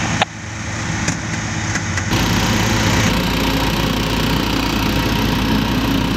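Small petrol engine of a portable hydraulic rescue-tool power unit running steadily, driving the hydraulic cutters and spreaders. The sound becomes fuller and noisier about two seconds in.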